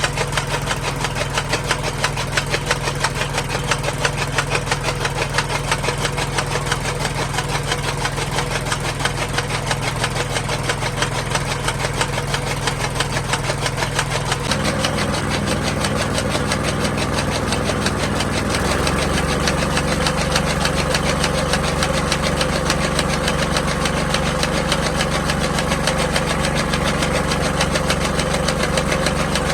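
An engine running steadily with a fast, even beat; its note shifts about halfway through and shifts again a few seconds later.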